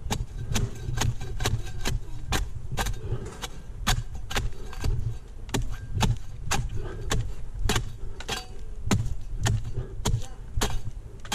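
Sharp, regular chopping strikes from a hand-held blade cutting into Canary Island date palm fronds, about two a second, over a steady low rumble.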